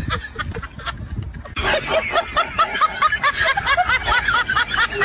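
High-pitched giggling laughter. It starts as soft snickering, then about a second and a half in it breaks into a fast, louder run of 'ha-ha' syllables, about six a second.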